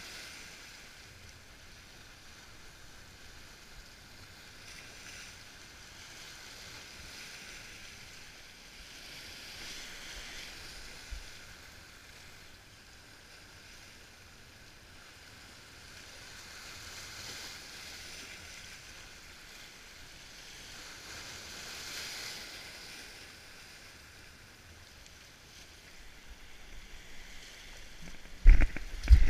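Small waves washing in over shore rocks, the surf hiss swelling and easing every few seconds. Near the end come a run of knocks and two loud thumps of steps on the rocks.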